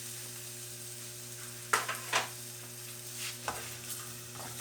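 Garlic, onions and ginger sautéing in hot oil in a pan: steady sizzling, with a utensil stirring and knocking against the pan a few times, most strongly about two seconds in.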